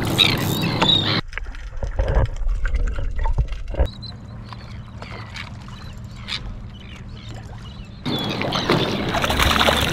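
Wind and water noise around a small boat. It drops away suddenly about a second in to a quieter stretch of scattered knocks and clicks over a faint low hum. The loud wind and water noise comes back near the end.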